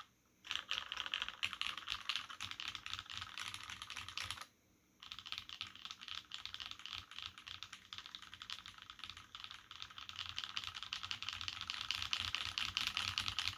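Fast continuous typing on a mechanical keyboard with lubed Cherry MX Black linear switches in an aluminium full plate and Cherry dye-sub keycaps, giving the "clack" sound these switches are known for. A brief pause at about four and a half seconds, then the typing resumes.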